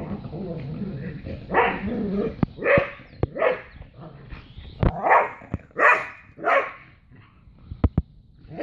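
Dogs barking in short bursts while play-wrestling: an American Eskimo dog and a border collie, about six barks through the middle of the stretch, with a few sharp clicks between them.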